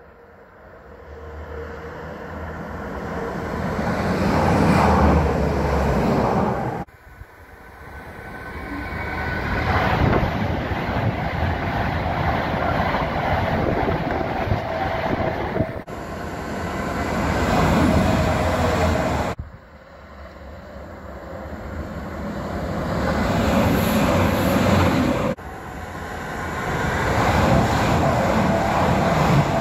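Electric express trains running through at speed, among them a Class 390 Pendolino and a Class 397: a dense rush of wheels on rail. Each pass swells in level and then breaks off abruptly, four times over.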